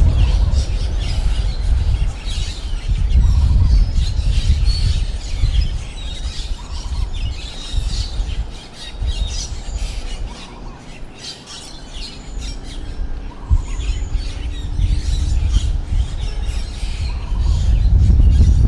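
Strong wind gusting and buffeting the microphone, easing for a few seconds in the middle and building again near the end. Birds chirp and squawk throughout.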